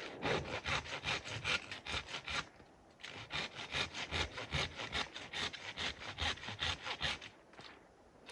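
Hand saw cutting through wood with quick, even back-and-forth strokes, in two runs with a short pause between.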